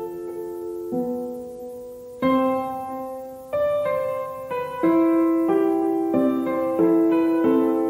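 Background piano music: slow, held notes and chords that change about once a second.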